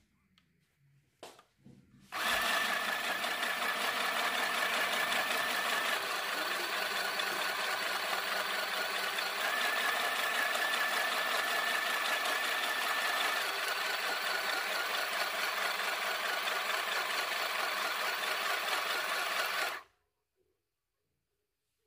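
Mini sewing machine stitching a seam through fabric, running at a steady speed. It starts about two seconds in after a few light handling clicks, and stops abruptly near the end.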